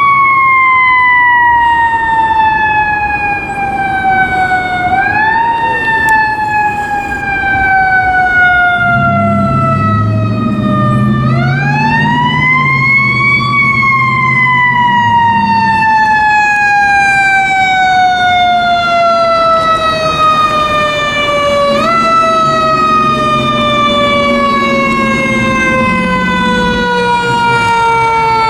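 A 1995 KME fire engine's siren sounding on a call. Its pitch winds up, then falls slowly for several seconds, and is wound up again several times, the longest wind-up about halfway through. A low rumble comes in underneath twice as the truck draws near.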